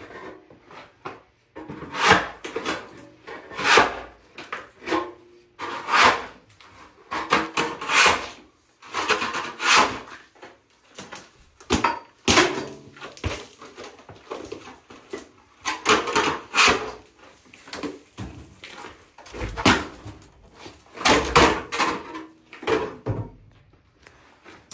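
A hand floor scraper pushed across a concrete floor in irregular short strokes, about one a second, scraping up stuck-on residue.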